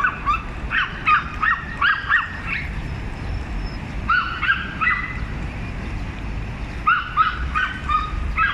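Small Pomeranian-type dogs yapping rapidly at a bigger dog, in three bouts of quick high-pitched yaps with short pauses between them.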